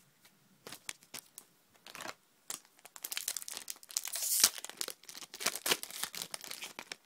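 Foil wrapper of a Pokémon trading-card booster pack crinkling and tearing as it is opened. Scattered crackles at first, growing dense and loudest through the middle.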